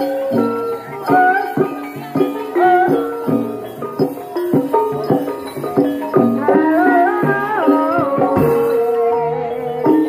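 Traditional Javanese ebeg (kuda lumping) accompaniment music: drum strokes and tuned percussion in a quick rhythm, with a wavering melody line coming in about six seconds in.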